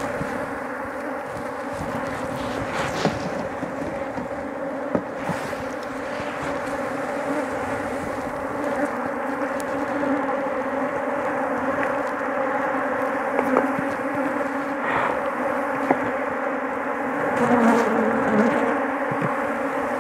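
Many honey bees buzzing around an opened hive: a steady, dense hum, with a few sharp clicks.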